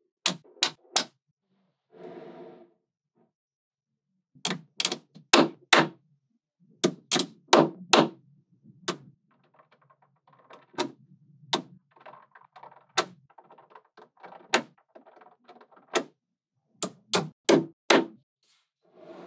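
Small magnetic balls clicking sharply as pieces snap together, with many single clicks and quick runs of two or three at irregular gaps. Between the clicks, softer rattling of balls shifting against one another.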